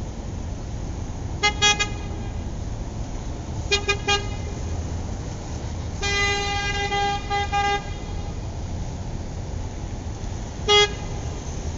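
Car horn honking: two bursts of quick toots, then a longer honk broken into several blasts, then a single short toot near the end, over a steady low traffic rumble.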